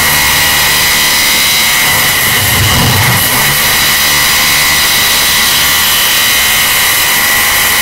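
Construction-site machinery noise boosted until it clips and distorts into a harsh, steady din with a high steady whine, and a brief low rumble about three seconds in.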